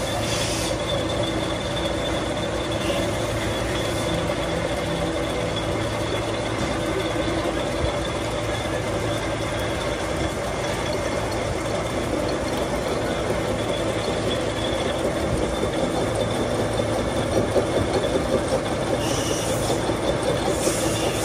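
Steady machine-shop noise from metalworking on the boom pin: a machine running continuously with a low hum and a thin high whine, never stopping.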